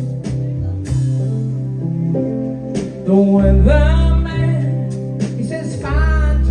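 Live band playing a slow ballad: a sustained bass line, steady drum strikes and a wavering lead melody over them.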